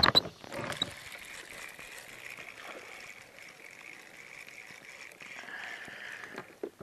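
A sharp knock or splash right at the start, then small sounds of a spinning reel and line being handled in a kayak over faint water lapping.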